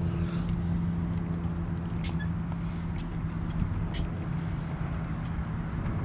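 Steady low mechanical drone, like a running engine, with a few faint clicks over it.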